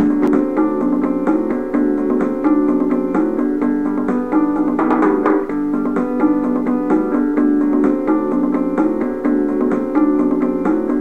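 Background music: a keyboard tune of quick, evenly repeated notes.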